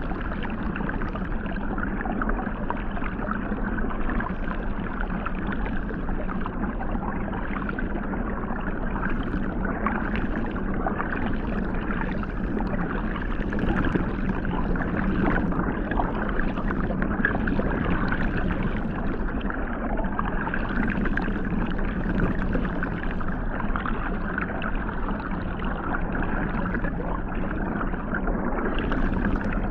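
Hot tub water jets heard underwater: a steady churning rush of water with a constant low hum from the jet pump running underneath.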